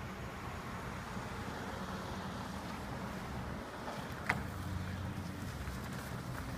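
City street ambience: a steady low hum of vehicle traffic under general street noise, with one short sharp click about four seconds in.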